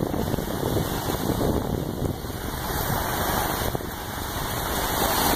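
Small surf breaking and washing up a sandy beach, with wind buffeting the microphone. The wash swells louder near the end.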